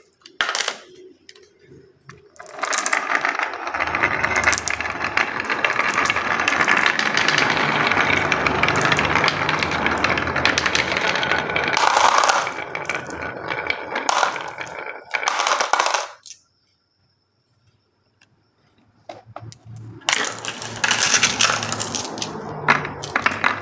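Marbles rolling and clattering down a toy marble run, a dense, continuous rattle with sharp clicks as they drop and strike the track. It stops for a few seconds about two-thirds of the way through, then picks up again with more clicks and clatter.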